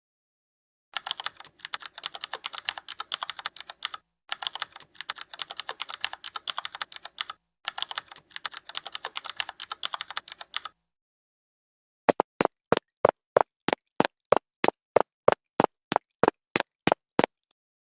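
Rapid computer-keyboard typing in three bursts of quick clicking keystrokes, then a run of evenly spaced single clicks, about three a second, for around five seconds.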